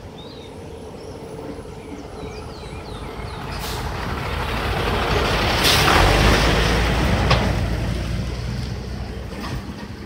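A truck passes on the road. Its engine and tyre noise build over about five seconds to a peak a little past the middle, then fade, with a brief hiss at the loudest moment.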